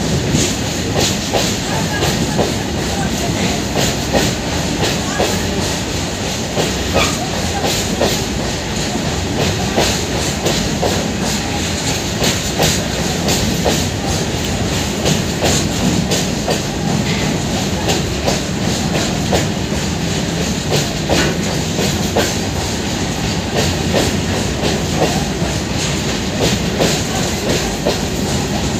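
Goods train of empty BFNS flat wagons rolling along the track: a steady rumble with many wheel clicks over the rail joints.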